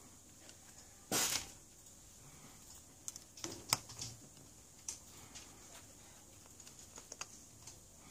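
Fingertips pressing and tapping on an opened smartphone's flex cables and frame: a brief rustling scrape about a second in, then scattered light clicks and taps, the loudest about halfway through.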